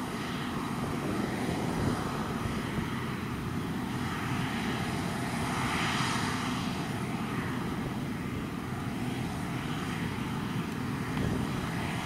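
Deutz-Fahr Topliner 4065 HTS combine harvester running steadily under load as it threshes spring barley, while its unloading auger empties grain into a trailer alongside.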